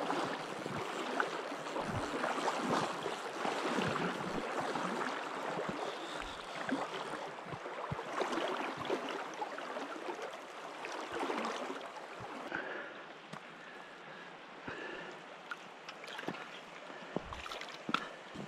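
Shallow river running over stones: a steady rush of moving water with faint scattered ticks.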